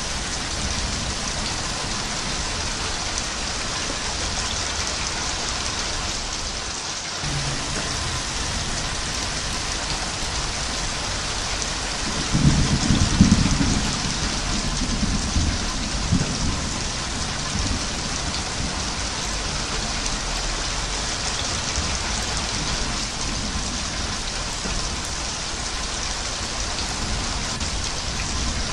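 Steady heavy rain hissing, with a low rumble of thunder rolling in about twelve seconds in, loudest for a couple of seconds and then fading back under the rain.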